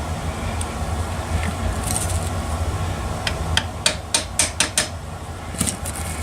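Light metallic taps and clicks from hand tools and parts as a connecting rod cap is worked into alignment on the outboard's crankshaft: a quick run of about seven taps in the second half and a couple more near the end, over a steady low hum.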